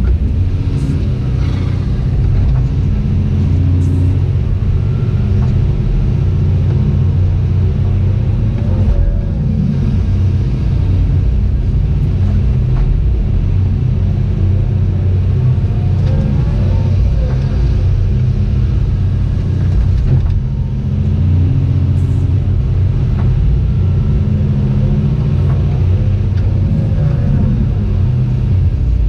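Cat 349F excavator's diesel engine running steadily under load, with a fainter whine that rises and falls a few times as the machine works.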